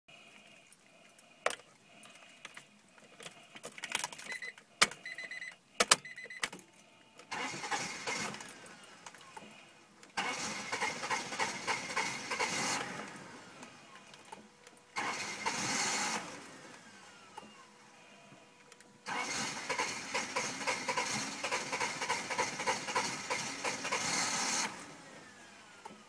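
1995 Acura Integra's B20B engine being cranked by the starter several times, turning over with an even pulse but never catching: the car won't start. A few sharp clicks come first.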